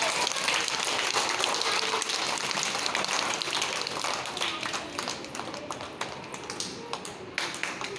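A group of young children clapping their hands, a dense patter of claps that thins out and gets quieter near the end.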